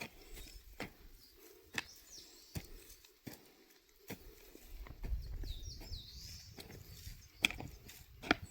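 Birds calling in short chirps, with a series of sharp knocks or taps roughly a second apart and a low rumble coming in about halfway.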